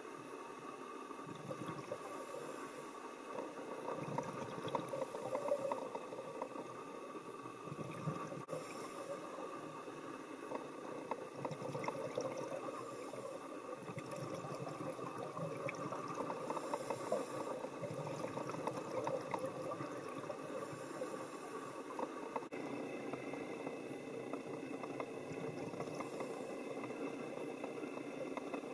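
Underwater ambience: a steady bubbling, crackling water noise, with a soft hiss recurring about every four seconds from a scuba diver's regulator breathing.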